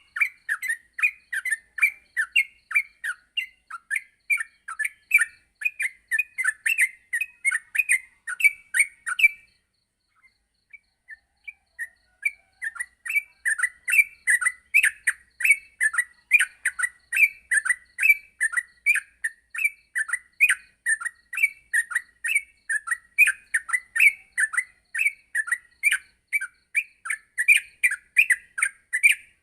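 Yellow-vented bulbul (trucukan) singing a fast, chattering run of short bubbly notes, about three a second. The song breaks off for a couple of seconds about ten seconds in, then carries on as before.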